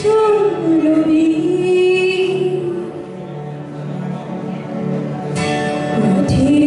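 A woman singing into a handheld microphone over instrumental backing music, holding long wavering notes.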